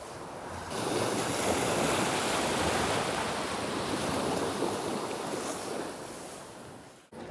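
Sea surf: a wave breaking and washing up the beach. It swells about a second in, then slowly fades and cuts off abruptly just before the end.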